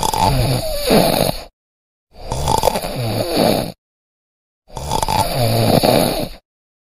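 A man snoring loudly: three long snores, each about a second and a half, with dead silence between them.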